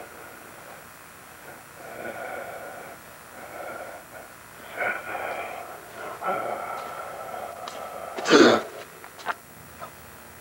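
A person breathing with a loud wheeze, several drawn-out whistling breaths one after another, then one loud harsh rasp about eight seconds in.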